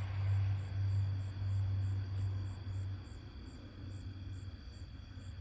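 Low, steady rumble that fades out about three seconds in, leaving faint hiss.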